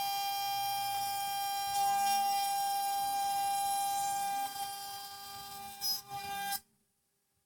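CNC 6040 router's spindle whining at a steady high pitch while milling aluminium. It gets quieter about two-thirds of the way in, then cuts off suddenly near the end.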